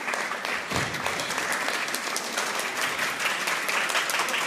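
Crowd in a large hall clapping, a dense run of many hands at once, with one dull low thud about a second in.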